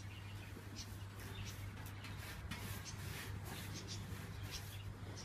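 Paintbrush strokes spreading wet primer over a tractor's sheet-metal bonnet: faint, irregular scratchy brushing, over a steady low hum.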